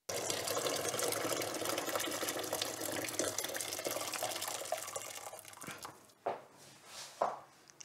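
Water running from a kitchen tap into a sink, starting abruptly and dying away after about five seconds, followed by a few sharp knocks.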